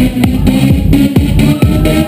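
Loud dance music with a steady, heavy kick drum at about two beats a second, with synth notes over it.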